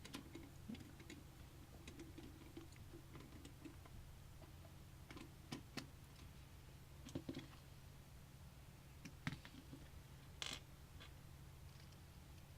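Faint, scattered clicks and light taps of screws and small parts being handled on a computer case, over a low steady hum.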